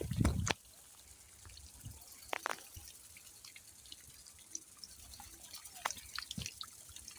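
Water from mini sprinklers dripping and pattering irregularly onto a sorghum crop, scattered small ticks over a faint hiss. A low thump comes right at the start.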